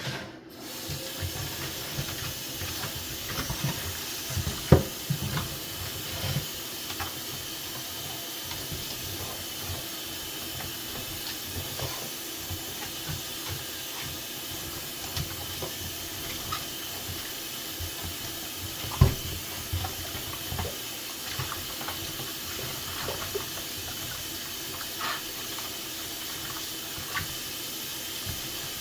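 Tap water running steadily into a basin while vegetables are washed by hand, with a few knocks and clunks; the two loudest come about 5 and 19 seconds in.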